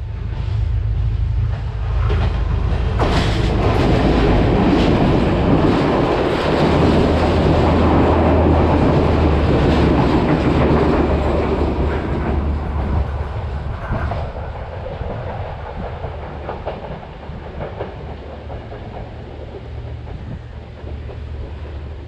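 Diesel train passing without stopping, wheels clattering over the rail joints over a low steady engine drone. The sound builds over the first few seconds, is loudest for about eight seconds, then fades as the train runs away.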